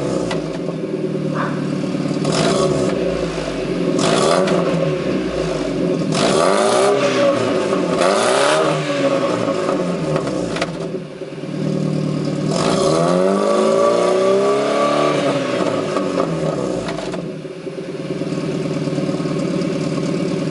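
Chevrolet Astra GSI's four-cylinder engine heard through a sport exhaust with a large tailpipe, blipped and revved several times, rising and falling in pitch, with one longer rev about two thirds of the way through. Near the end it drops back to a steady idle.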